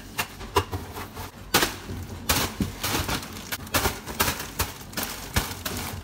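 Wooden rolling pin pounding Oreo cookies in a zip-top bag on a countertop, crushing them into crumbs: repeated sharp knocks, irregular, about two or three a second.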